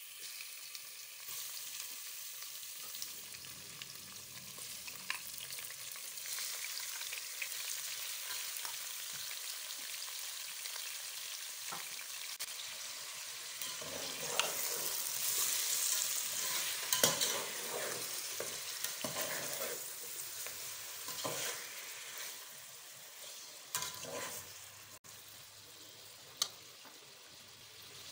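Raw chicken pieces sizzling in hot oil in a metal pot while a metal slotted spatula stirs and scrapes them, searing the meat until it turns white. The sizzle swells about halfway through, with a few sharp clinks of the spatula against the pot in the second half.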